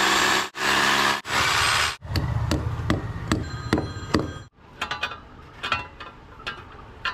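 Velmoc rotary hammer drill boring into a masonry wall in three short bursts, then a hammer striking, a quick series of sharp blows that ring, followed by a few lighter taps.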